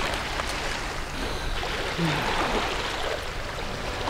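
Steady rushing noise of wind and small waves washing against the shoreline rocks.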